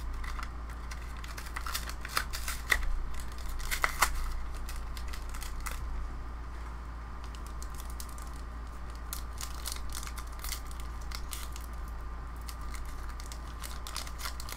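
Foil booster pack wrapper crinkling and tearing as fingers pick at a stubborn seal, with scattered small clicks and rustles that are busiest in the first few seconds, over a steady low hum.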